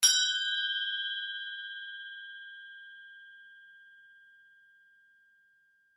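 A bell-like chime struck once, ringing on one clear pitch with fainter higher overtones and fading away over about five seconds.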